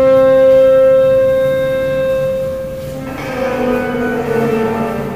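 Instrumental music: one long held note rich in overtones for about three seconds, then a phrase of shorter notes moving in pitch.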